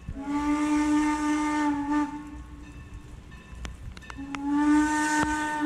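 Steam locomotive's whistle blowing two long, steady blasts of the same pitch, with steam hissing over each. Two long blasts are the railroad signal to release brakes and proceed.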